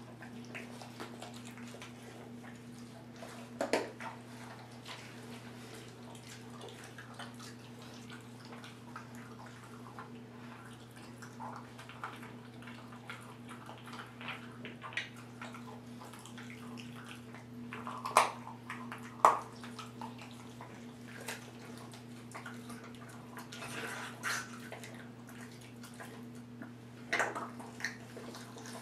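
A 10-week-old bullmastiff puppy chewing and crunching the bones of a frozen chicken wing: wet mouth noises broken by sharp cracks, the loudest about four seconds in, twice around eighteen to nineteen seconds in, and near the end. A steady low hum runs underneath.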